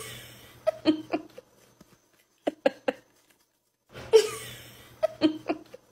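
A person laughing in short bursts of a few quick syllables at a time, with breathy swells in between.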